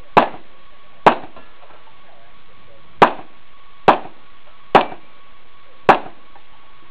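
Six pistol shots fired one at a time, about a second apart, with a pause of about two seconds after the second shot.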